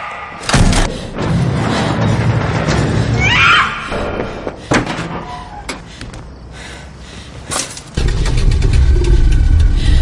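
Dramatic film soundtrack: tense music with heavy thuds and a low rumble. There is a sharp hit about half a second in, a brief high wavering cry a little after three seconds, and a loud low surge near the end.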